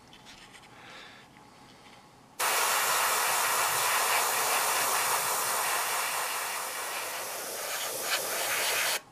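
Airbrush with a 0.3 mm nozzle spraying paint at 27 psi: a steady hiss of air that starts about two and a half seconds in and cuts off sharply just before the end.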